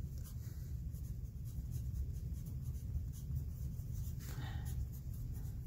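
Handwriting on a sheet of paper: the tip of a pen scratching out words in many short strokes, over a low steady hum.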